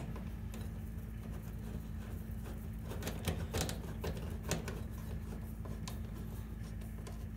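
Screwdriver turning a terminal screw down onto a ring terminal in an electric range's terminal block: scattered small metallic clicks and ticks, over a steady low hum.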